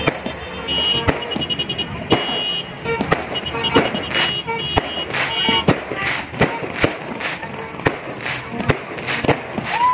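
Aerial fireworks bursting overhead, a rapid run of sharp bangs and crackles. For the first half, a high beeping pulses on and off over the bangs. A falling whistle starts right at the end.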